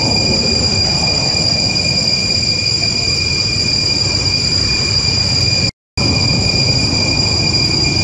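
Outdoor ambience: a steady high-pitched whine over a rough, rumbling noise, cutting out completely for a moment near six seconds.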